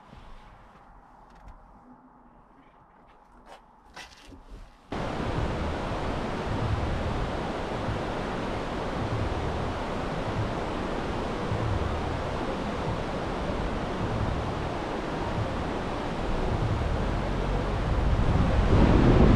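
A few faint clicks, then about five seconds in a steady loud rushing noise starts suddenly, with wind buffeting the microphone in low gusts about once a second; it grows louder near the end.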